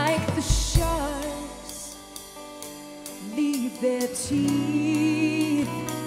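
Live band music: two acoustic guitars and a drum kit playing together, with cymbal strikes.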